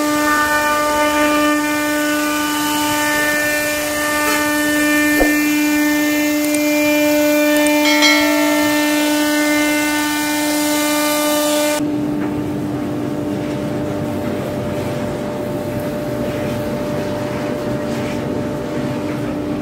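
CNC router spindle running at a steady high whine while its bit carves a wooden door panel, with a bright hiss of cutting. About twelve seconds in the sound changes abruptly to the duller rushing of a dust-extraction hose sucking sawdust off the carved door.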